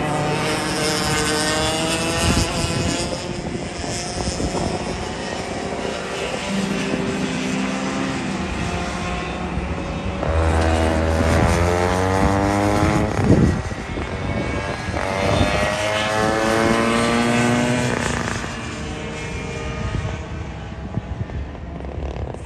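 Two-stroke racing kart engines on track, a Rotax Micro Max among them, each revving up in pitch along the straights and dropping back into the corners. The loudest pass comes about ten to thirteen seconds in, a kart close by climbing steeply in pitch before it falls away.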